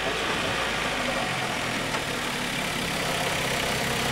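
A motor vehicle's engine idling steadily.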